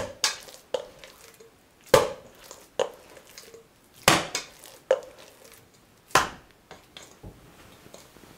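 Minced pork being slapped down against the bottom of a stainless steel bowl, beating the mince to make it smooth and firm for cutlets. Wet thuds about once a second, the hardest every two seconds or so, each with a brief ring from the metal bowl.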